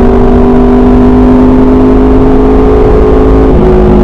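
Motorcycle with an SC Project aftermarket exhaust running at a steady engine speed under way, its note dropping slightly in pitch about three and a half seconds in.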